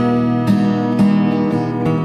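Background instrumental music: a slow melody with a new note about every half second.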